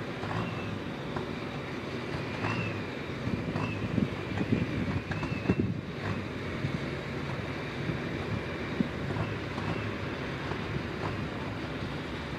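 Lead GE diesel-electric locomotives of a CSX freight train approaching, their engines running with a steady low rumble and a faint, wavering high whine, with wind buffeting the microphone.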